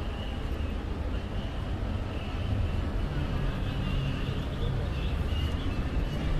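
City street ambience: a steady low rumble of passing motor traffic.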